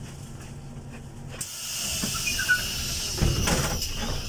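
City bus's compressed-air system letting out a sudden sharp hiss about a second and a half in, over the low hum of the bus. A heavy clunk with a rattle follows about three seconds in.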